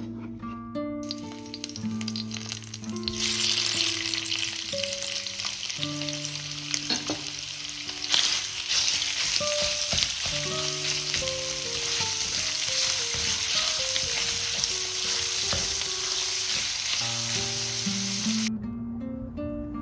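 Food sizzling in a hot frying pan, over acoustic guitar music. The sizzle comes in about a second in, grows much louder a couple of seconds later, holds steady, and cuts off suddenly near the end.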